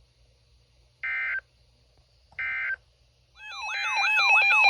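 Two short bursts of digital data tones from a NOAA Weather Radio broadcast, the SAME code bursts that end an alert message. About a second before the end, a loud warbling electronic alert tone starts, sweeping up and down a couple of times a second over steady tones, as a new warning comes in.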